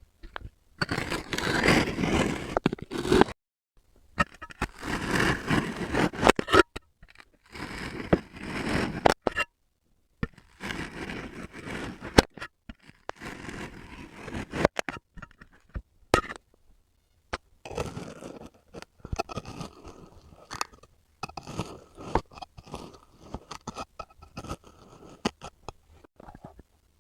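Kinetic sand being scraped and cut, in repeated crunchy scraping bursts a few seconds long separated by short silences, with sharp clicks here and there.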